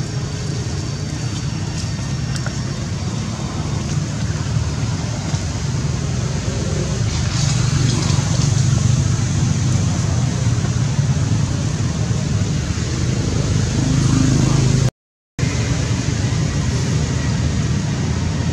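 Steady low rumbling background noise, cut off by a brief dead-silent gap about fifteen seconds in.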